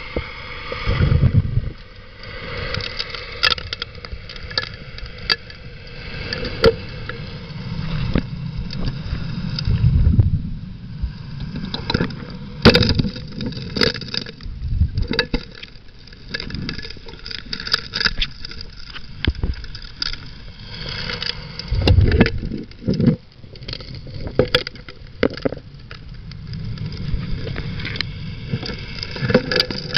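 Underwater sound of a Keene 4-inch gold dredge's suction nozzle working a streambed: rocks and gravel clack and knock irregularly, with heavier low thumps every few seconds, over a steady low drone from the dredge's Honda engine and pump.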